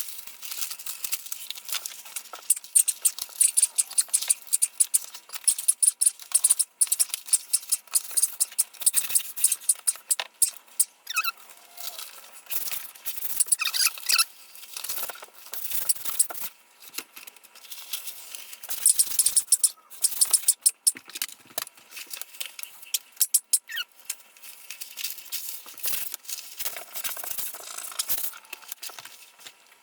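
Thick peel-and-stick wallpaper being handled and applied: irregular crinkling, crackling and peeling, with rubbing as the sheet is smoothed down and a few brief squeaks.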